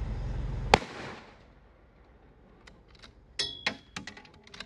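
A single sharp rifle shot about three-quarters of a second in, with a short ringing tail. A steady low rumble cuts off with the shot, and a few faint clicks and knocks follow near the end.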